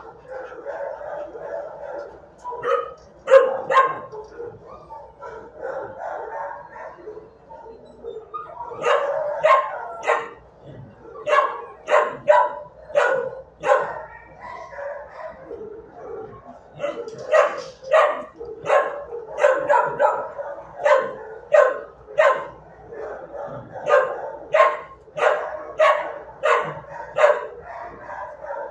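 Shelter dogs in kennel runs barking over and over above a constant din of more barking. Sharp barks come in runs, a few about three seconds in, then thick runs through most of the second half.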